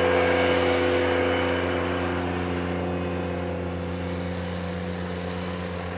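Ventrac 4500 compact tractor's engine running steadily while it drives a power rake through loose soil, gradually getting quieter.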